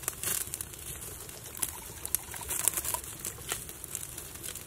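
Campfire crackling with scattered sharp pops, over the steady sizzle of a T-bone steak cooking on the fire.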